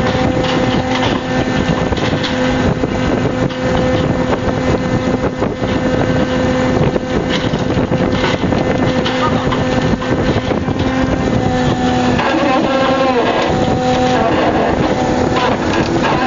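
A fishing boat's machinery running with a steady hum, while the net bag of fish is hoisted over the deck, with wind buffeting the microphone and small knocks and clatter of work on deck.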